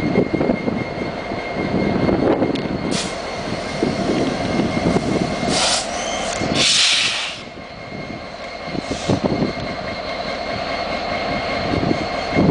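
SD70ACe diesel-electric locomotives idling at a standstill: a steady engine rumble with a faint high whine. Short bursts of air hissing come about three seconds in, again from about five and a half to seven and a half seconds (the loudest), and once more near nine seconds.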